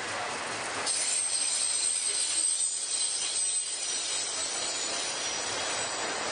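Freight train wheels squealing against the rails as the cars roll past. A high, several-toned squeal starts about a second in over the steady rolling noise.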